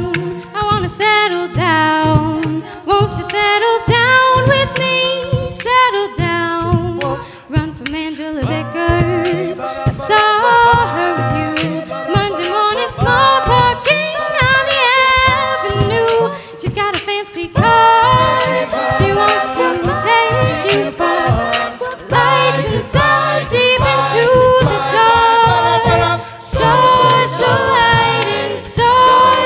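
Mixed-voice a cappella group singing a pop arrangement in close harmony through microphones, over a beatboxed vocal-percussion beat.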